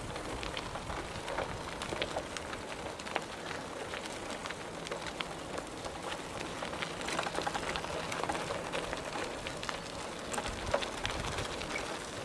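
Bicycle tyres rolling over a gravel path: a steady hiss with a dense, uneven crackle of small clicks.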